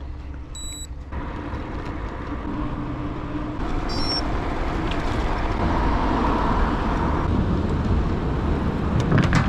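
Steady riding noise on a mountain bike: wind rumble on the microphone and tyre noise on the road, growing louder through the middle.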